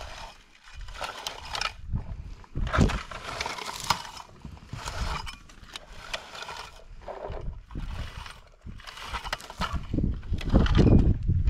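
Handheld blueberry picker raking through low blueberry bushes: repeated scraping, rustling strokes of tines through twigs and leaves, about one a second, louder and deeper near the end.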